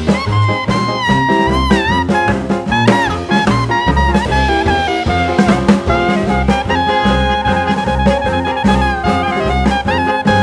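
Background jazz music with a swing feel: a horn melody over a walking bass and drums.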